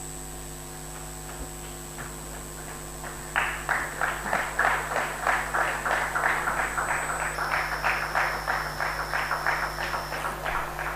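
Applause from a small group, starting about three seconds in after a stretch of low hum, with the single claps coming fast and distinct until the end.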